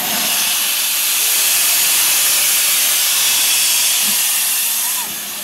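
Steam hissing steadily from the low front end of LMS Stanier Class 8F steam locomotive 48305, standing at the platform, escaping beneath the buffer beam. It eases a little about five seconds in.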